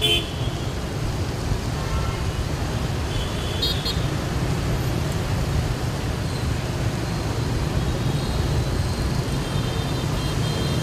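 Steady rumble of city road traffic, with brief horn toots right at the start and again about three and a half seconds in.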